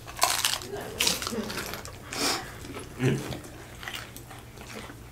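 Close-up eating sounds: slurping spicy instant noodles and biting into crunchy hard taco shells, four loud bursts about a second apart, then quieter.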